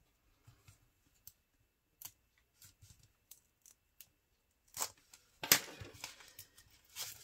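A craft knife slitting the tape and shrink-wrap along a rolled canvas: faint, scattered scratches and ticks of the blade. About five seconds in come louder rustles and tearing as the plastic wrap is pulled open.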